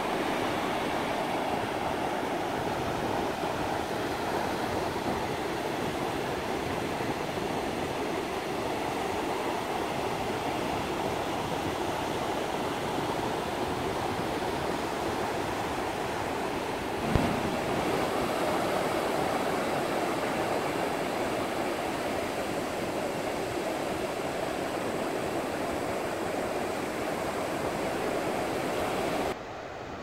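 Surf breaking and washing onto a sandy beach, a steady wash of waves with one brief knock about seventeen seconds in. It drops to a quieter level just before the end.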